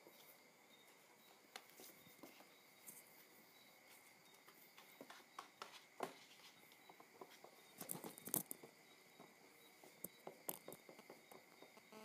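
Faint scratches, taps and scuffles of kittens pawing and batting at a cardboard cereal box, with a louder flurry about eight seconds in.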